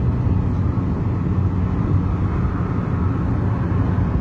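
Hyundai HR light truck's engine running steadily at cruising speed with a low drone, with road noise, heard from inside the cab while driving.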